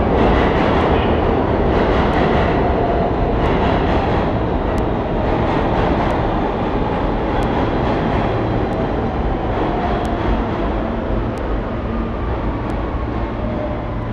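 R160 subway train pulling into the station: a steady rumble of wheels on the rails with scattered clicks, slowly easing off. A faint falling whine is heard in the second half as the train slows.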